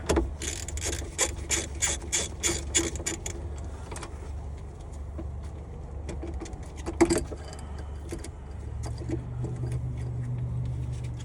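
Ratchet with a 10 mm socket clicking in quick strokes, about four clicks a second for a few seconds, as the nut on the negative battery terminal is loosened. A single sharper metal click comes about seven seconds in, over a steady low hum.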